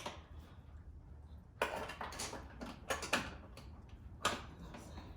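A few separate metallic knocks and rattles: hardware and tools being handled while a tow-mirror bracket is fitted to the truck door. One sharp click comes first, then three clusters of rattling about a second apart.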